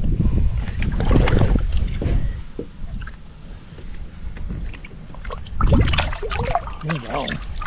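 Water splashing and knocking around a small fishing boat, with wind rumbling on the microphone. It comes in two louder stretches, at the start and again in the last couple of seconds.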